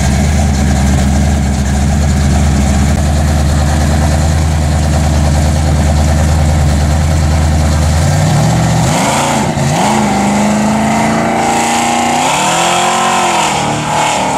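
Supercharged V8 of a Plymouth Barracuda drag car running at a steady low idle. About eight seconds in it revs up and accelerates away, the pitch rising and dropping twice.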